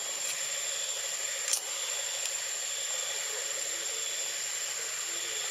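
Steady hiss of forest background with one thin, high whine held throughout. A single sharp click comes about one and a half seconds in.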